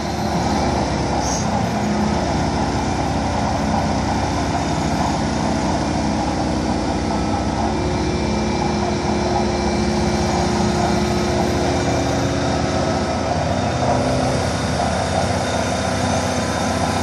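Doosan DX420 excavator's diesel engine running steadily as the tunnelling boom is worked.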